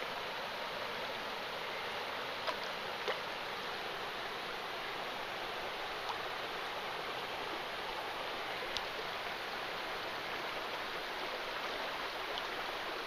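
Small stream running steadily, an even rush of flowing water, with a few faint clicks.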